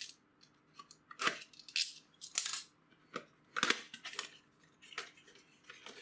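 A small cardboard processor retail box being slit open with a utility knife and unpacked: about six short scraping and rustling sounds as the blade, flaps and cardboard insert rub against the carton.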